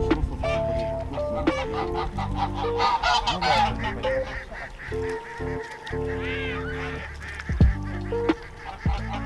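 Geese honking several times, with a cluster of calls about three seconds in and another around six seconds, over background music with steady held notes.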